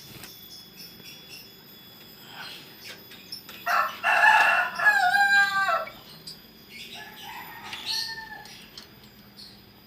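A loud bird call starting about four seconds in and lasting about two seconds, ending in falling notes, then a fainter call near the eight-second mark, over scattered small high chirps.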